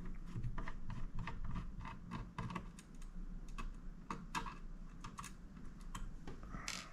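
Irregular light clicks and ticks of a Phillips screwdriver turning a small screw out of a mini PC's chassis, several a second, with a short scrape near the end.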